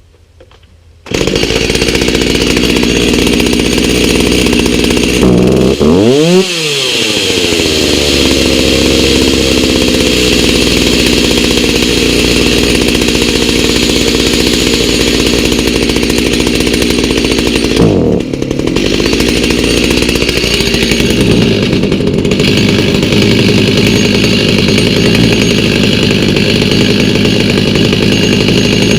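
Stihl MS290 two-stroke chainsaw engine starting about a second in and running loudly on its freshly fitted aftermarket carburettor during a test start. The revs dip sharply and recover about six seconds in, and dip briefly again around eighteen seconds.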